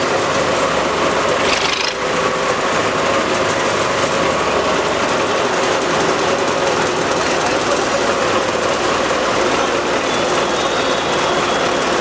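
Road roller's diesel engine running steadily under way, with a short hiss about two seconds in.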